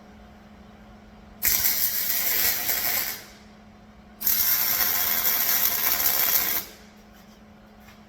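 Arc welder laying two tack welds on steel flatbed crossbars: two bursts of crackling welding arc, the first about a second and a half in and lasting under two seconds, the second a little longer and ending near the end.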